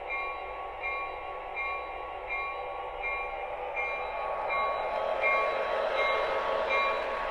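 Lionel GP38 model diesel locomotive running, its sound system ringing the locomotive bell about once every 0.7 s over a steady rumble that grows louder about halfway through.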